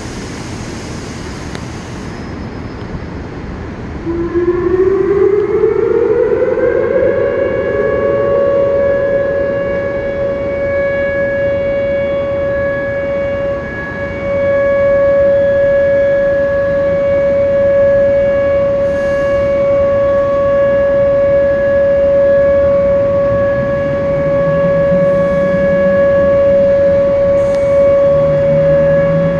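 Outdoor warning siren sounding its monthly test: it winds up in pitch over about three seconds, then holds one steady tone. Before it starts there is a steady rushing noise.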